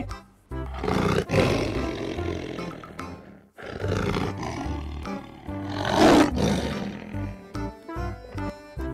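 A wild cat growling sound effect in two long calls, with a short break about three and a half seconds in, the second louder near its middle, over background music.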